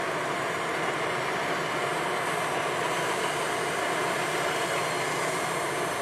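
Diesel engines of a Vögele Super 1800-2 asphalt paver and a dump truck running together as the truck unloads into the paver's hopper, making a loud, steady, even din.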